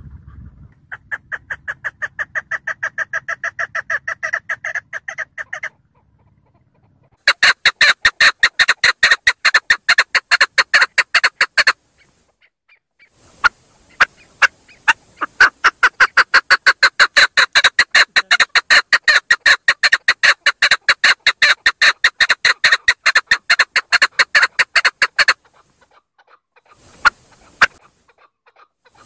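Female chukar partridge calling: three long runs of rapid, evenly spaced call notes, the first softer and the next two louder, with pauses of a second or two between them and a few single notes near the end.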